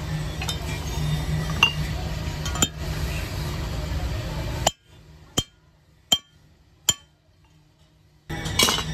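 Metal parts of a hand meat mincer clinking as they are handled and fitted: a few sharp clinks over a steady low hum, then the hum drops out about halfway and three sharp clinks come about three-quarters of a second apart, with the hum returning near the end.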